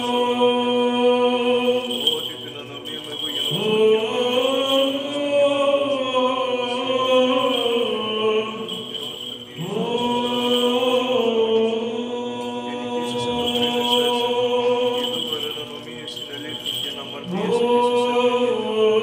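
Male church chanters singing Byzantine chant over a steady held drone note (the ison). The melody rises into a new phrase about three and a half seconds in, again about ten seconds in, and near the end.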